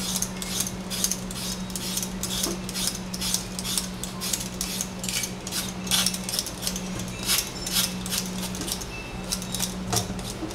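Raw potato being peeled with a metal vegetable peeler: quick scraping strokes, two or three a second, over a steady low hum.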